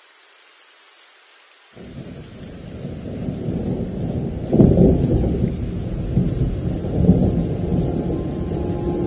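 Thunder rumbling over rain: a faint steady rain hiss, then about two seconds in a deep rumble starts suddenly and keeps rolling, with louder peals about five and seven seconds in.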